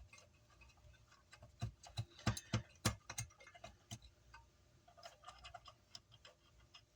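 Small clicks and taps of hardware being handled and fitted onto a car amplifier's board and chassis, coming irregularly and clustered between about one and a half and four seconds in.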